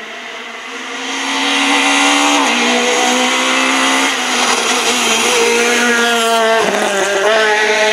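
Peugeot 208 rally car at high revs, coming closer and passing near, louder from about a second in. The engine note drops sharply a few times as the driver shifts or lifts off.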